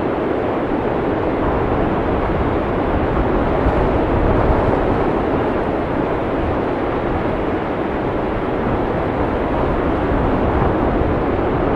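Heavy blizzard wind blowing in a steady, loud rush of noise with gentle swells, deep and rumbling rather than hissy.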